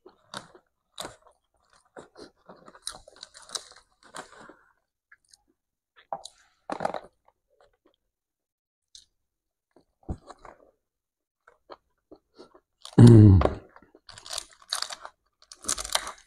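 Close-up mouth sounds of a person eating by hand: chewing with small irregular clicks and crackles as fingers pick food out of a cardboard takeaway box. About thirteen seconds in comes one loud, short, low-pitched sound.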